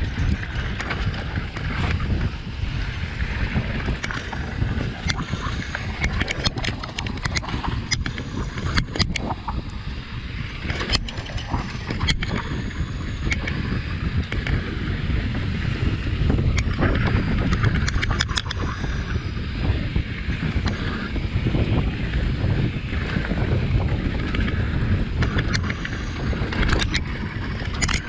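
Wind buffeting the microphone over a steady rumble of mountain bike tyres rolling on dirt singletrack, with frequent sharp clicks and rattles from the bike over bumps.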